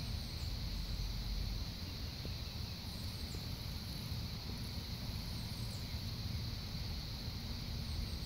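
Outdoor background: a steady high-pitched drone, typical of insects, over a low rumble, with a few brief, very high, falling chirps every few seconds.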